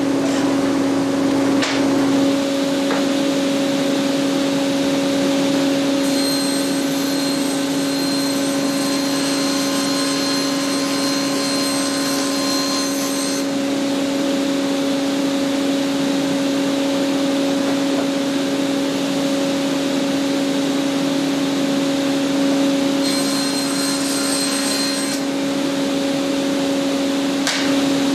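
Woodworking power saws running, a miter saw and then a table saw cutting panels, over a steady machine hum. The hiss brightens for a long stretch starting about six seconds in and again briefly near the end.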